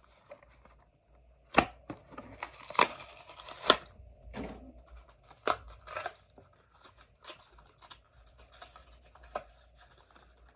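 A Hot Wheels cardboard-and-plastic blister pack being torn open by hand. Sharp snaps and ripping come loudest from about a second and a half to four seconds in, then lighter crinkling and clicks as the car is worked out of the plastic.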